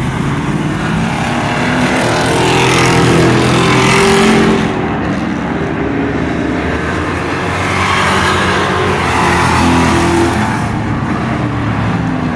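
Dirt-track stock cars running at speed on the oval, engines at high revs. They pass in two louder swells, one about two to four seconds in and another around eight to ten seconds in.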